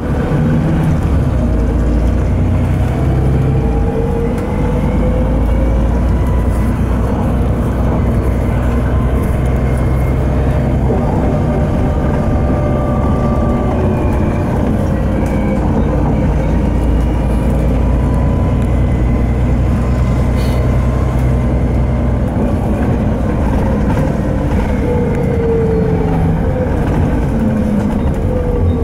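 Volvo B7TL double-decker bus under way, heard from inside the passenger saloon: its Volvo D7C diesel runs with a steady low hum, and the Voith automatic gearbox adds a whine that rises and falls in pitch as the bus speeds up and slows.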